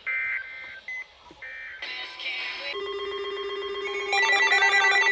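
Weather-radio SAME digital data bursts: a few short, harsh two-tone warbles in the first second and a half, the end-of-message code that closes an alert. Then electronic synthesizer music comes in and grows louder with a pulsing beat about four seconds in.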